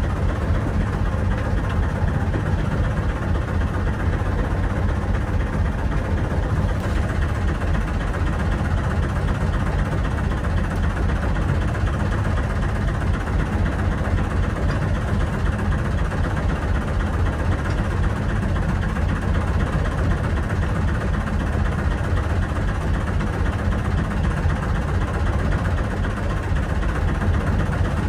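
An engine running steadily, a low drone with no change in speed.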